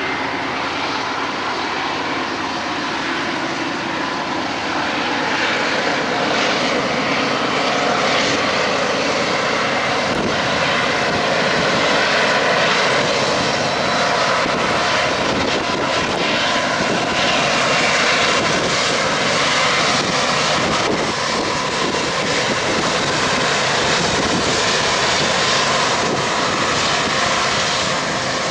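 Diesel locomotives of a long intermodal freight train running as they pass, followed by the steady sound of double-stack container cars rolling over the rails. The sound grows a little louder a few seconds in and then holds.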